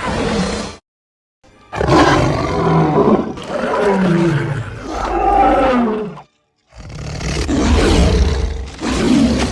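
Lion roaring and growling in a string of separate calls: a short one right at the start, then two long roars whose pitch slides downward.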